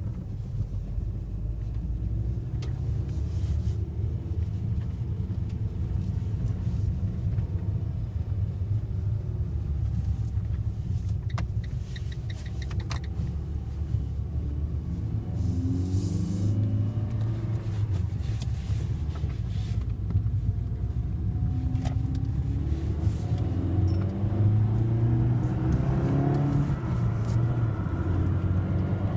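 2013 Fiat 500 Sport's small four-cylinder engine running as the car is driven, its pitch rising and falling with the throttle and gears. There is a short run of clicks about twelve seconds in, and the engine gets louder near the end.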